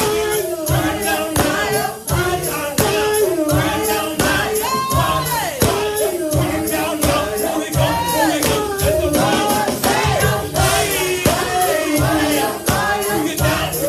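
Live gospel praise music: voices singing a melody over a steady beat, with percussion such as a tambourine shaking in time.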